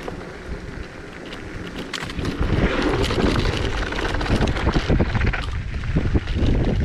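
Zero 10X electric scooter ridden over a loose shale and gravel trail: wind buffeting the microphone, with tyre rumble and many rattling clicks. The noise grows louder about two seconds in.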